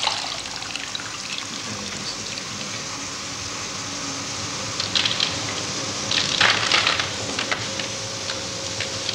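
Water splashing in a bucket as plaster of Paris bandage is soaked and wrung out, with louder splashes about five seconds in and again around six and a half seconds, over a steady hiss.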